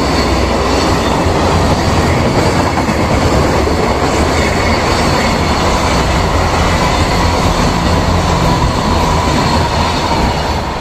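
Container freight train hauled by an EF210 electric locomotive running past, a steady loud rolling noise of wheels on the rails.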